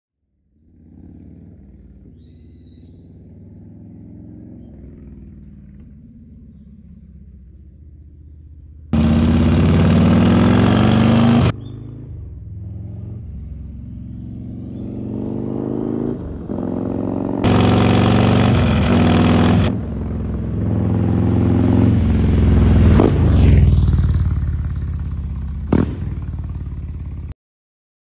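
Harley-Davidson Heritage Classic's Milwaukee-Eight V-twin running through a Rinehart exhaust, in a series of edited clips. It starts faint and builds, with two loud bursts of revving that start and stop abruptly. A louder stretch follows with the pitch sliding up and down as the bike rides by, a sharp crack comes near the end, and the sound cuts off suddenly.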